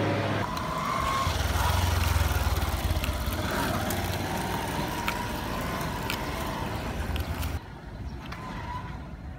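Outdoor street ambience with traffic: a steady low vehicle rumble and road noise, with scattered small clicks. Near the end it drops to a quieter outdoor ambience.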